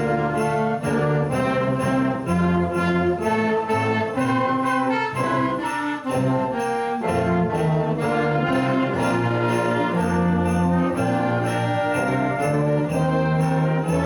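Instrumental Christmas music from an ensemble with brass, sleigh bells jingling on a steady beat.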